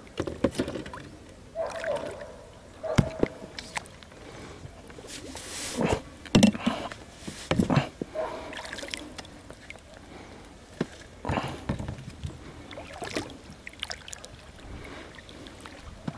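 Oars and a long pole worked in the water beside an inflatable rubber boat: irregular splashes and sloshing, with scattered knocks against the boat.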